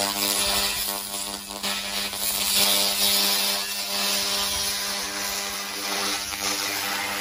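A handheld 1000 W continuous-wave fiber laser cleaner with a wobble scan head burning paint and rust off a steel bar: a dense, steady hiss with a steady buzzing hum underneath.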